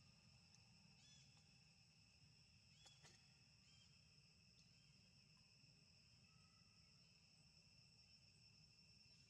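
Very faint, steady high-pitched insect chorus, typical of crickets, with a few brief chirps about one and three seconds in.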